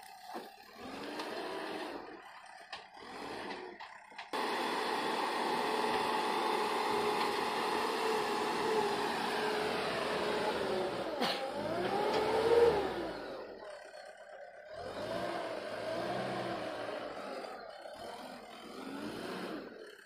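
Diesel engine of a JCB Eco Xpert backhoe loader running under load while its loader bucket pushes soil. The revs drop about ten seconds in, rise again briefly, then ease off to a lower, weaker run.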